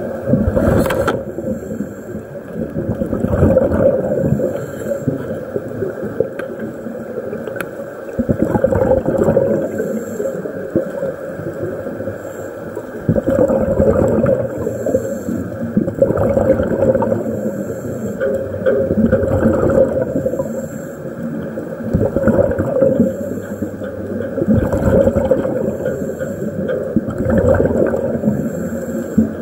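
Scuba diver breathing through a regulator underwater, each exhalation a muffled rush of bubbles every few seconds, heard through a waterproof camera housing.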